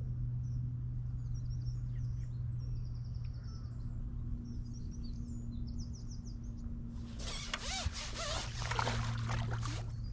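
Small birds chirping over a steady low hum; about seven seconds in, water splashing and sloshing sets in.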